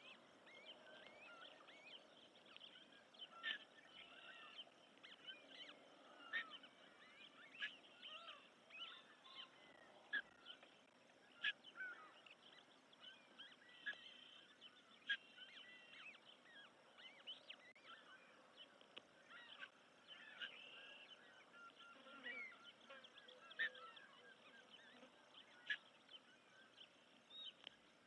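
Faint bird chirping: many short, high chips and peeps, scattered irregularly, with a few brief whistled phrases.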